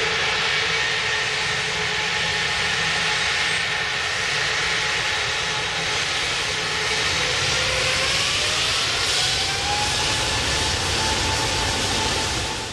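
Jet airliner engines running loudly with a steady roar and a whine that rises in pitch partway through as the engines spool up; the sound cuts off abruptly at the end.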